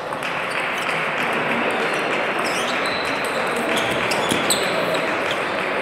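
Table tennis ball ticking in a rally, a quick series of sharp clicks as it strikes bats and table, over a steady hubbub of voices in a large hall.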